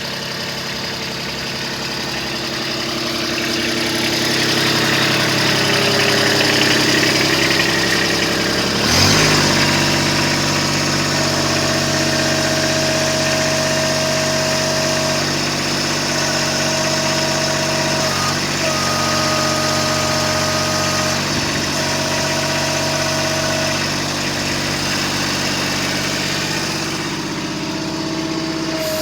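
Kubota B26 tractor loader backhoe's diesel engine running steadily, its sound shifting suddenly about nine seconds in. After that a steady whine comes and goes over the engine.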